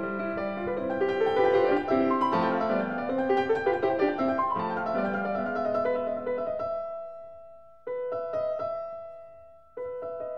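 Background piano music: a flowing run of notes, then slower chords left to ring and fade, with a fresh chord struck twice near the end.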